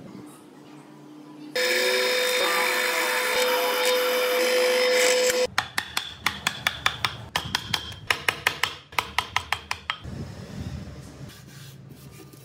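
A power tool runs steadily with a constant hum for about four seconds, then stops abruptly. Then a chisel chops into solid wood in a run of sharp knocks, about three a second, which gives way to quieter scraping near the end.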